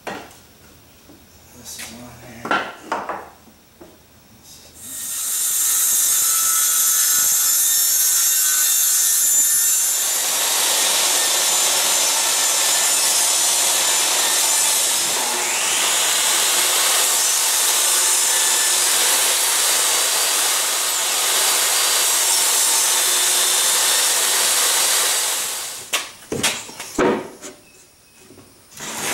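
Portable jobsite table saw running and ripping a sheet of plywood for about twenty seconds, the sound filling out a few seconds after it starts. A few knocks of wood being handled come before and after the cut.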